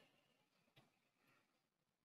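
Near silence: a digital gap between spoken words.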